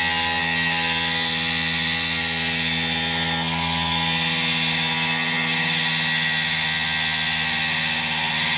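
Dremel rotary tool at slow speed, its thin diamond-tipped disc cutting through the RC excavator's hard metal cab: a steady motor whine with a hiss of cutting.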